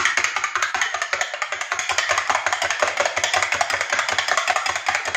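Metal spoon beating a raw egg in a ceramic bowl: rapid, rhythmic clicking and clattering of the spoon against the bowl.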